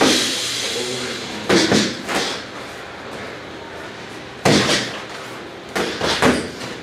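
Boxing gloves landing during sparring: several sharp punch impacts, one right at the start, a pair about a second and a half in, and a cluster between about four and a half and six seconds in.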